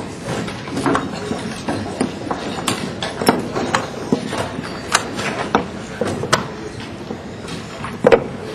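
Chess pieces clacking down on boards and chess clock buttons being hit in fast blitz play: irregular sharp clicks, about two a second, over a low murmur of voices.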